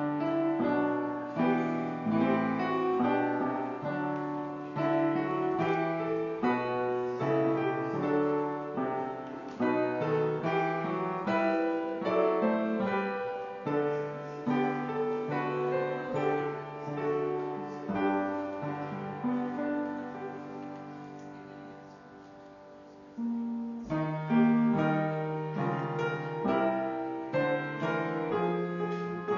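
Piano playing a slow piece of held chords and notes. It grows quieter about two-thirds of the way through, then comes back in louder a couple of seconds later.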